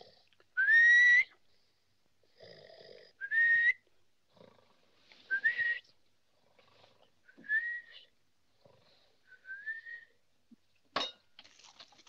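A man snoring in bed: rasping snores, each followed by a short whistle that glides upward in pitch. There are five whistles, each fainter than the last, and a single short knock near the end.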